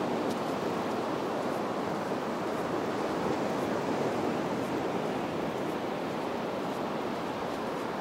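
Surf breaking on a sandy beach: a steady, even wash of waves.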